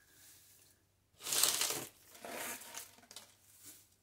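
Crinkle-cut paper shred packing being pulled out and rustled by hand: a loud rustle about a second in, then a couple of quieter ones.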